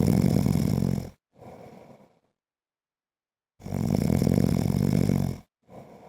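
A sleeping man snoring: two loud, pulsing snores about four seconds apart, each followed by a softer, shorter breath, with silence in between.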